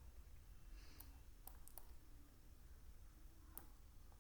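Near silence with a few faint, sharp clicks scattered through it, about four in all.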